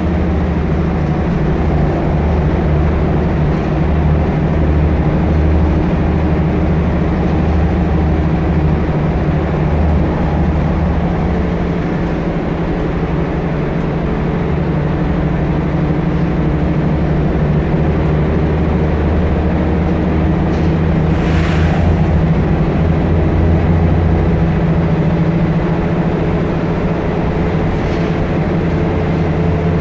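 Volvo single-deck bus on the move, heard from inside the saloon: a steady low diesel engine drone mixed with road and body noise. There is a brief hiss about two-thirds of the way through.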